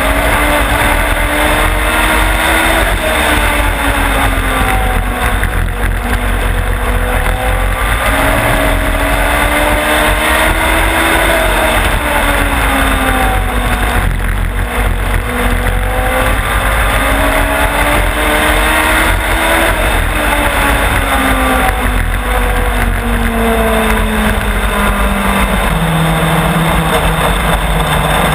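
Race car engine heard onboard at speed on a short oval, the pitch climbing down each straight and falling into each turn about every four seconds. Near the end it drops to a steady lower note as the car slows behind the pace car.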